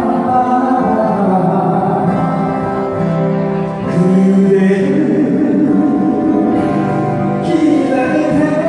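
Live acoustic guitar group singing a slow Korean ballad over acoustic guitars, with long held sung notes.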